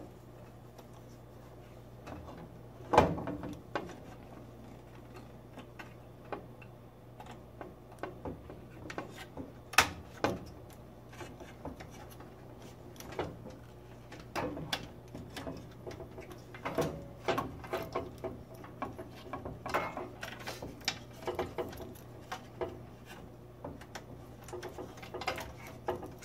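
Scattered small clicks and knocks of wire connectors and plastic parts being handled and pushed back onto a gas range's control board, with a louder knock about 3 s in and another about 10 s in. A faint steady low hum runs underneath.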